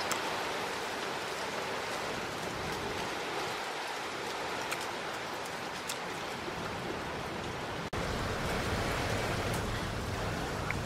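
Steady rushing noise of running water, with a few faint clicks. About eight seconds in it breaks off for an instant and comes back with a deeper rumble underneath.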